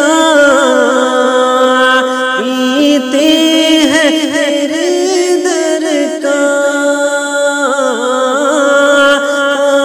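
A solo voice singing a naat (Urdu devotional hymn) in long, drawn-out notes with wavering ornaments, over a steady low drone.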